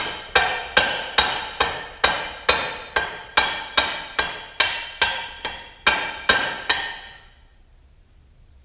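Hammer striking steel: about seventeen evenly spaced ringing blows, roughly two and a half a second, that stop about seven seconds in.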